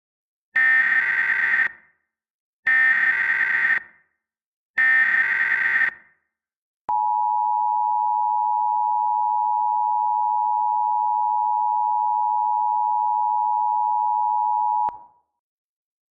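Emergency Alert System signal: three short bursts of screechy digital SAME header data about two seconds apart, then the EAS two-tone attention signal, a steady two-note tone held for about eight seconds before it cuts off. This is the sequence that announces an emergency alert message is about to be read.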